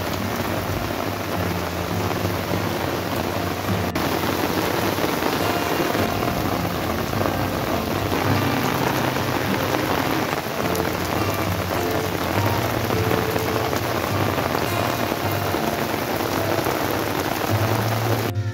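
Heavy rain pouring steadily onto leaves and wet paving, a dense unbroken hiss.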